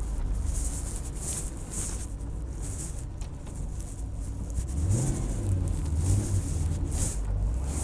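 Camaro Z28 V8 running through aftermarket headers and exhaust with a low rumble, the revs rising briefly about five seconds in.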